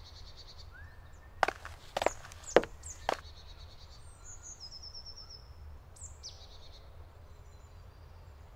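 Woodland birds chirping, with short descending calls and a high trill, over a low steady rumble. Four sharp knocks come about half a second apart, starting about a second and a half in.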